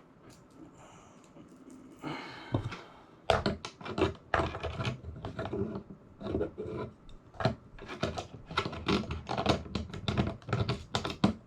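Quiet at first, then from about three seconds in a dense run of light clicks and clatter as small hardware parts are handled and fitted.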